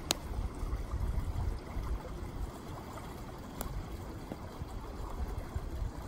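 Small forest stream trickling and gurgling steadily over a low rumble. Two sharp clicks, one right at the start and one about three and a half seconds in.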